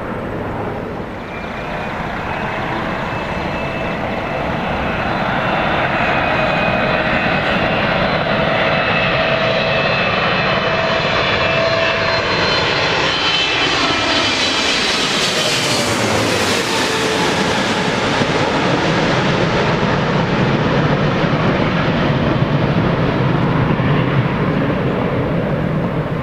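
Jet airliner on landing approach flying past: the engine whine builds, several whining tones slide down in pitch as it passes closest about sixteen seconds in, and a deeper rumble follows as it moves away.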